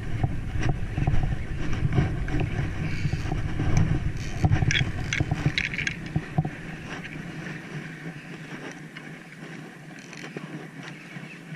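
Wind buffeting the action camera's microphone, a heavy low rumble that drops away about seven seconds in. A cluster of sharp clicks and scrapes about four and a half to six and a half seconds in, from hands working the spinning reel and rod.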